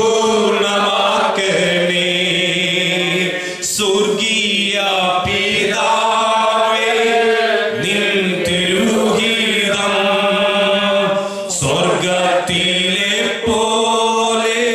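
A slow Malayalam Christian worship song being sung, with long held, gliding notes in phrases of a few seconds over a steady low sustained accompaniment tone.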